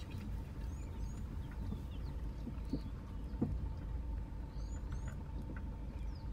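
Birds giving short high chirps, often in pairs, over the steady low rumble of a vehicle's running engine.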